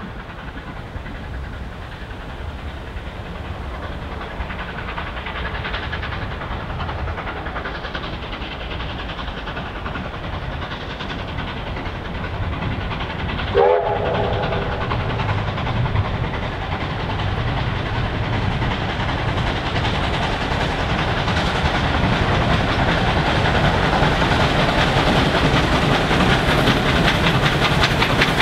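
Victorian Railways K-class 2-8-0 steam locomotive K153 climbing a steep grade at the head of a train, its working sound growing louder as it comes closer and passes. A steam whistle sounds briefly about halfway through.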